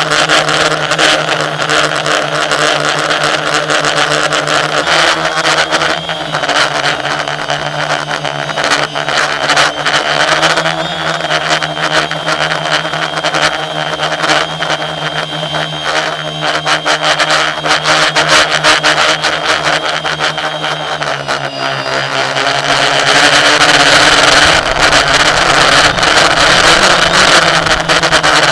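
A motor or machine running with a steady hum whose pitch shifts a few times. A thin high whine sounds over it through the middle, and it grows louder and rougher near the end.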